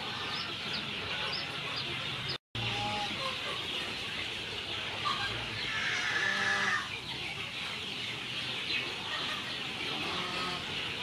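Chickens clucking, with one longer, louder call about six seconds in, over a steady chorus of high chirping. The sound cuts out briefly about two seconds in.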